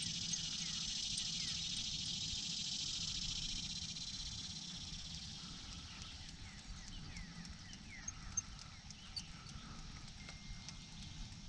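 Chorus of cicadas buzzing in the trees, a dense high pulsing drone that is loudest over the first few seconds and then fades. A low steady hum sits underneath, and a few light clicks come later.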